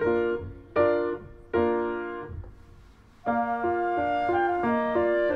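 Background piano music: three chords struck about a second apart, each dying away, then a flowing run of notes picks up again about three seconds in.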